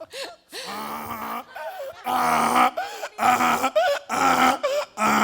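A person imitating a donkey's bray with their voice: a softer drawn-out sound first, then four loud hee-haw cries about a second apart.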